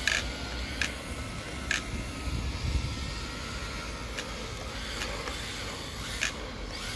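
MST RMX 2.0 RC drift car driving and sliding: a faint electric motor whine over the steady hiss of the tyres, with several sharp clicks.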